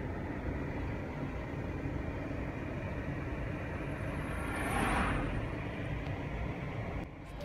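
Steady low rumble of a car heard from inside its cabin, with a louder whooshing swell about five seconds in and a short drop-off just before the end.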